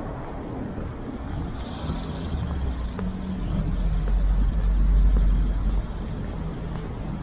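A motor vehicle passing on the street, its low engine rumble swelling to a peak about five seconds in and then dropping away.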